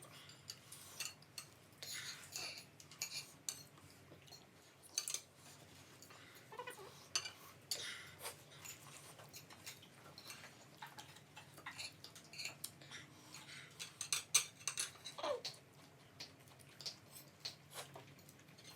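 Spoons and cutlery clinking against plates and bowls during a meal, with scattered small clicks and taps at irregular intervals.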